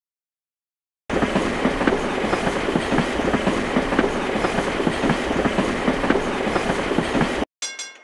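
Dubbed sound effect of a full-size train passing, its wheels clattering over the rail joints in a steady clickety-clack, starting abruptly about a second in and cutting off abruptly near the end. Short, repeated ringing clinks follow right after it.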